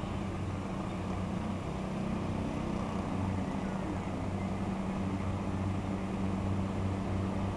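Low, steady engine hum of a diesel train approaching a level crossing, slowly growing louder toward the end.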